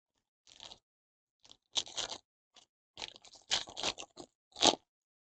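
Crinkling and crunching of a trading-card pack's foil wrapper being handled and torn open, in irregular bursts with the loudest one near the end.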